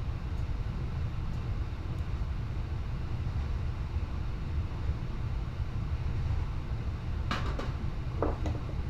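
Steady low rumble, with a few short clicks and a brief scrape near the end as parts are handled during the ATV rear-end teardown.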